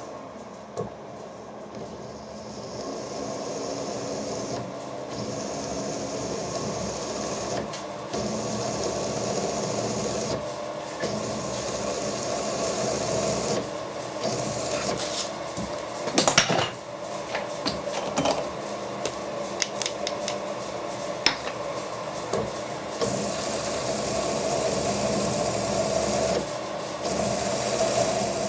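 Milling machine running with a countersink cutter cutting into a drilled hole in a steel vice jaw: a steady machine hum, with a high cutting hiss that comes and goes. A few sharp clicks come through, the loudest about two-thirds of the way through.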